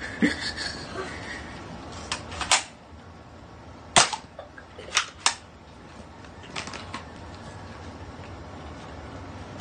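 Toy foam-dart blaster being cocked and fired: a series of sharp plastic snaps and clacks, the loudest about four seconds in, followed by a quick pair about a second later.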